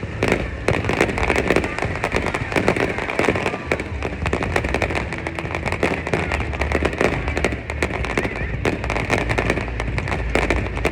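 Aerial fireworks going off in a rapid, continuous barrage: many crackling bangs close together over a low rumble of booms.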